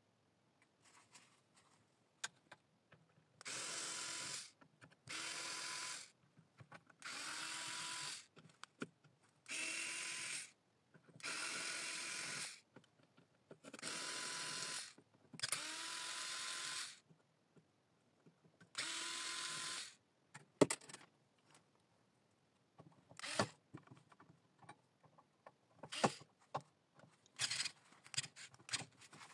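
Small cordless electric screwdriver unscrewing the screws of an electricity meter. It makes about eight short bursts of a second or so each, with the motor whine rising at the start of each, followed near the end by scattered clicks of screws and parts being handled.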